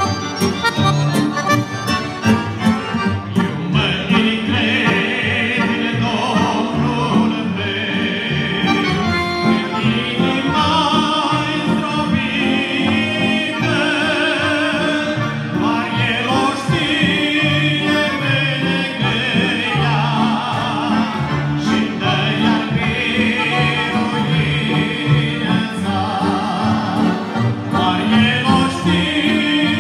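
Accordion playing a Christian song, with a singing voice coming in a few seconds in and carrying the melody over it.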